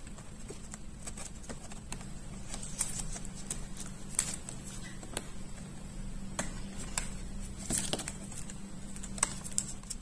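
Small irregular clicks and taps of fingers handling a laptop's battery cable plug and pressing it back into its connector on the motherboard.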